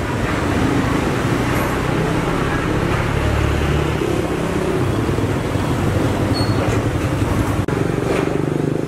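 Road traffic: a motor vehicle's engine running steadily over a constant traffic hum, loudest about three to four seconds in.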